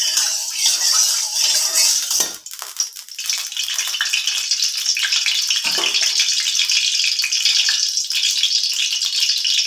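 White cooking oil sizzling and crackling as it heats in an aluminium kadai, a steady high hiss that briefly drops out a little over two seconds in. A metal spatula scrapes the pan in the first couple of seconds.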